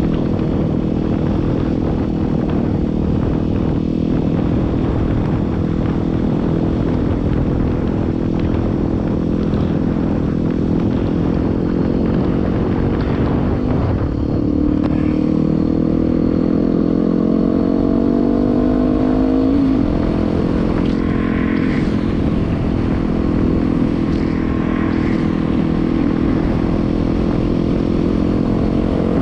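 Yamaha WR250R's 250 cc single-cylinder four-stroke engine running under way. Its pitch climbs steadily through the middle as the bike accelerates, then drops back about two-thirds of the way in.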